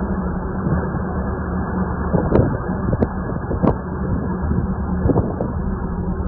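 Boat engine running with a steady low drone, wind buffeting the microphone, and several sharp knocks in the middle.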